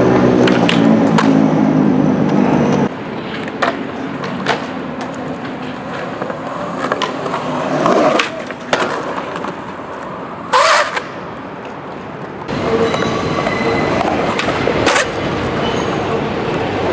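Skateboard wheels rolling, with several sharp clacks of the board popping and landing. The sound changes abruptly twice, as if between clips.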